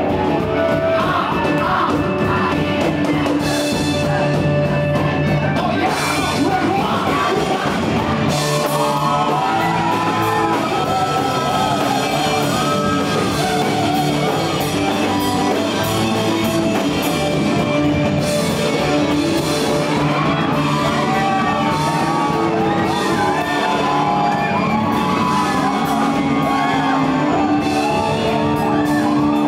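Punk rock band playing live at full volume: electric guitars and a driving beat under shouted, sung vocals.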